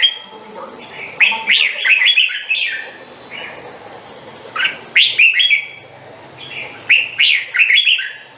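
Red-whiskered bulbul singing: short phrases of quick, swooping whistled notes, repeated every two to three seconds.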